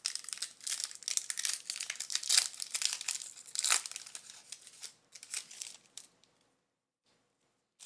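Foil wrapper of a Panini Select football trading-card pack crinkling and tearing as it is ripped open and the cards are slid out, in a dense run of crackles that stops about six seconds in.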